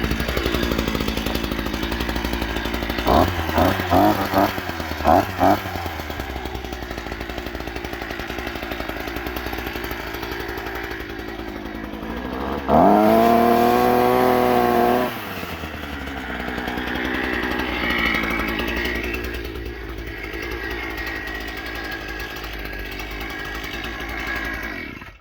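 Small two-stroke petrol engine of a Parkside PBK 4 B3 multi-tool running with its pole-saw attachment. The throttle is blipped about five times a few seconds in. In the middle the engine revs up high for about two seconds, then drops back to idle.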